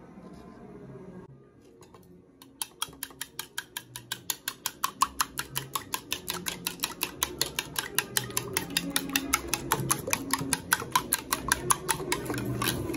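Metal spoon beating raw eggs in a ceramic bowl. It starts about two and a half seconds in: a fast, even run of sharp clicks as the spoon strikes the bowl, several a second. It stops just before the end.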